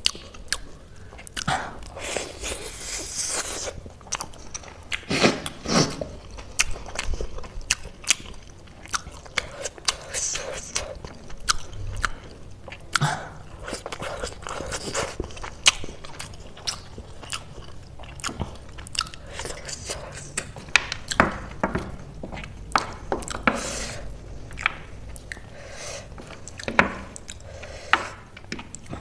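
Close-up mouth sounds of someone chewing a crunchy chaat of fried chips and crisp instant noodles, with many short sharp crunches.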